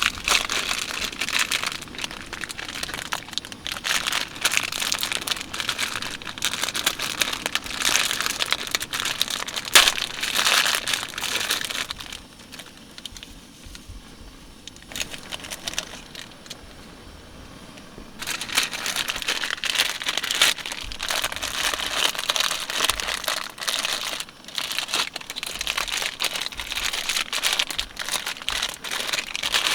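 Close crinkling and rustling in two long stretches, with a quieter pause of several seconds in the middle.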